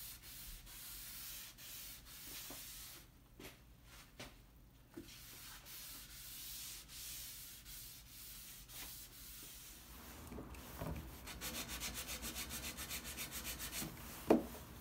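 A cloth rubbing Danish oil into a fir tabletop with soft, long wiping strokes. Later a hand sanding block is scrubbed fast back and forth over the wood, about six strokes a second, and then set down with a sharp knock near the end.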